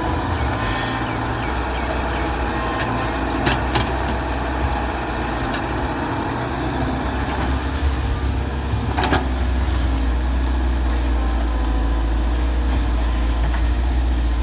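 Heavy diesel excavator engine running steadily under load, with a few sharp knocks: two close together about three and a half seconds in and a stronger one about nine seconds in.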